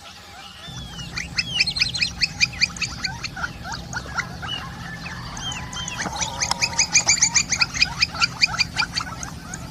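Campo flickers calling in two bouts of fast, repeated sharp notes, several a second, with a few single rising calls between the bouts.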